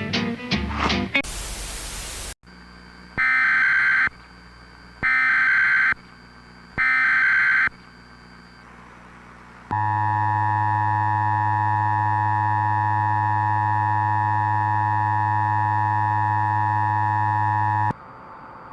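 Music cuts to about a second of static hiss. Then come three short bursts of Emergency Alert System SAME header data tones, about a second apart, and then the steady two-tone EAS attention signal, which sounds for about eight seconds and stops abruptly.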